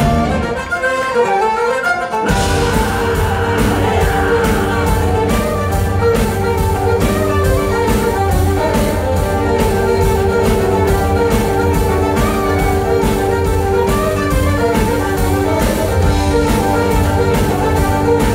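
Live folk-rock band playing an instrumental tune, with fiddles over guitars, bass and a drum kit. Bass and drums drop out for about the first two seconds, then the full band crashes back in and drives on with a steady beat.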